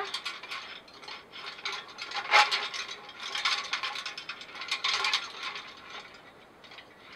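String of white Christmas lights, its small plastic bulbs and wire clicking and rattling against the bars of a wire birdcage as they are rearranged inside it. The clicks come in quick clusters, loudest about two and a half seconds in.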